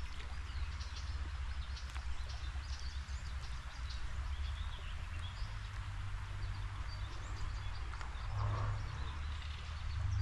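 Steady outdoor background noise at a creek: a constant low rumble with an even hiss above it and faint, scattered high chirps.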